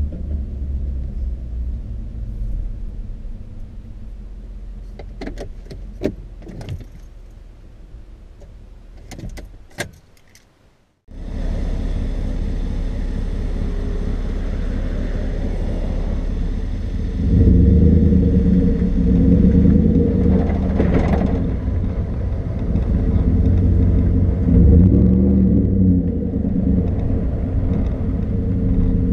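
Pickup cab road and engine noise fading away, with a few clicks and rattles. Then a brief silence, and the 2014 Ford F-150's 5.0 V8 running through a Flowmaster 50 Series HD Delta Flow muffler with dual outlets, heard close behind the tailgate. It idles steadily, then rumbles much louder as the truck pulls away and drives on.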